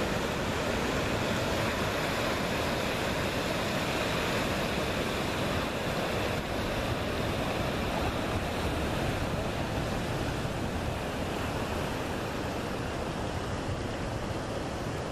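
Ocean surf breaking on a rocky reef, a steady wash of waves, with wind rumbling on the microphone.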